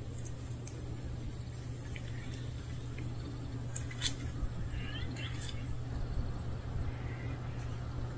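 Outdoor ambience with a steady low hum, a few sharp clicks about four seconds in, and faint short chirps just after.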